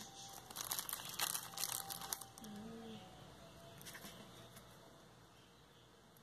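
Crinkling and small clicks from hands handling a rhinestone mesh strip and nylon thread, busiest for the first two seconds, then only faint rustling.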